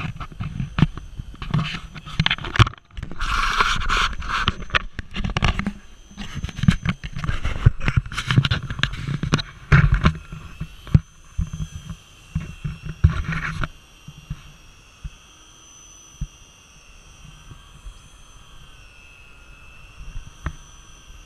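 Irregular knocks, thumps and rustling, with buffeting on the microphone, then about halfway through an electric deep-drop fishing reel's motor whining steadily as it winds line up, its pitch wavering a little under the load.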